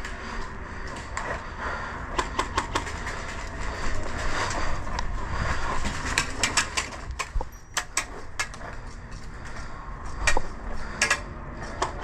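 Airsoft guns firing: sharp snapping shots, some single and some in quick clusters, the busiest stretch about halfway through. A steady low rumble runs underneath.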